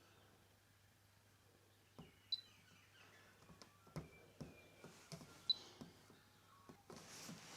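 Scattered clicks and knocks from a washing machine being handled and set, with two short high beeps about two and five seconds in, as from its control buttons.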